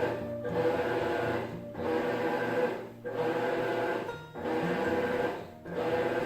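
Background music with a regular pulse, dipping briefly about every second and a quarter.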